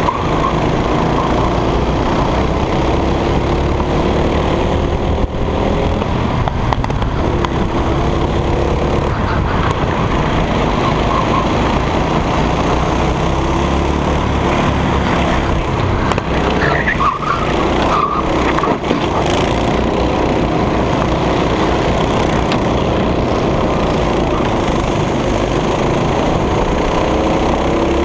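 Racing go-kart engine running hard, heard from on board the kart, its note rising and falling with the throttle through corners and straights over a heavy low rumble.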